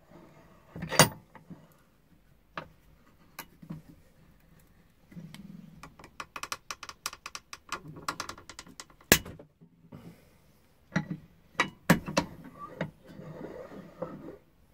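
Metal clicks, clinks and knocks as a selfie stick's telescoping metal tube is handled and worked against a bench vise, with a rapid run of small rattling clicks midway and a few sharp knocks.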